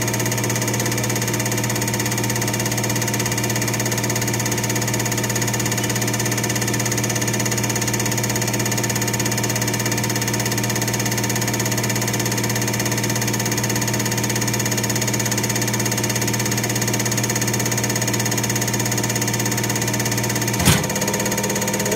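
Common-rail injector test bench running steadily with a Bosch piezo injector under test: a constant machine drone with several fixed humming tones. A single sharp click comes near the end.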